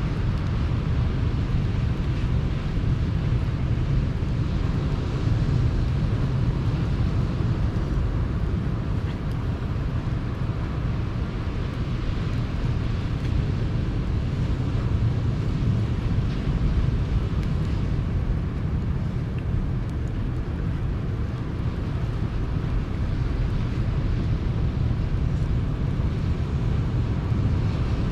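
Sea surf breaking and washing onto the shore, a constant rushing with a deep rumble underneath that swells and eases gently.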